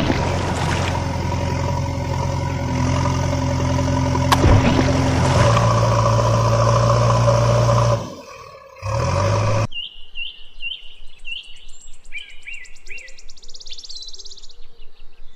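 Engine running steadily with an even hum for about eight seconds, then it cuts off. After that, small birds chirp in a run of short rising notes, followed by a fast high trill.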